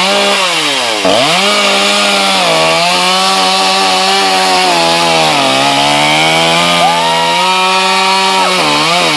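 Chainsaw engine running at high revs, its pitch dropping briefly about a second in, again around five and a half seconds, and once more near the end.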